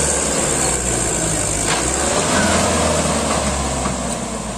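Mahindra 585 DI XP Plus tractor's four-cylinder diesel engine running steadily under heavy load, hauling a fully loaded trolley through soft sand.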